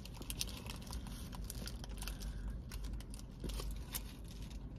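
Close-up chewing of a mouthful of chicken wrap: a run of small sharp mouth clicks and crunches, with soft crinkles of the paper wrapper in the hands.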